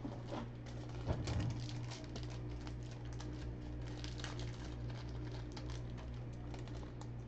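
Plastic card sleeves being taken out and handled: a run of light crinkling rustles and small clicks, over a steady low hum.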